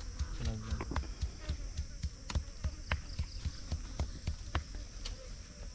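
Large fresh leaves crackling and snapping in the hands as they are folded and pinned together into a leaf plate: a quick, irregular run of sharp clicks with soft low thumps.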